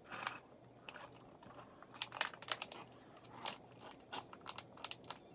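Irregular wet clicks and crinkling of someone drinking, swallowing from a bottle, over the faint steady low hum of a Lasko ceiling fan motor running on medium speed.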